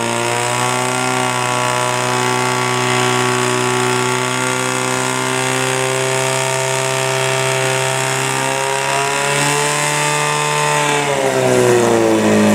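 Portable fire pump's engine running hard at high revs, a steady loud note while it drives water out through the hose lines. Near the end its note dips, then picks up again.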